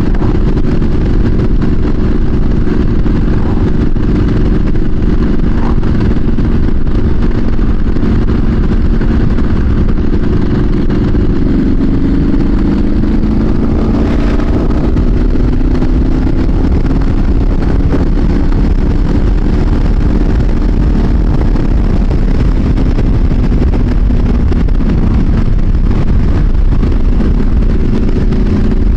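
Triumph SS900 motorcycle engine running under way, picked up by a helmet-mounted microphone with heavy wind rumble from riding speed. The engine note shifts a little in pitch around the middle, then settles.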